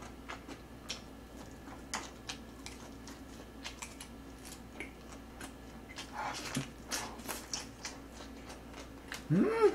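A person chewing food close to the microphone: soft, irregular mouth clicks and smacks, busier about six seconds in, with a short hummed "mm" near the end.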